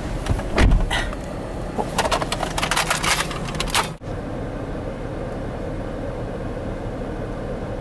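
Inside a car: a thump and a run of clicks and rustles as someone climbs in, then, after a sudden cut about four seconds in, the car's steady low rumble.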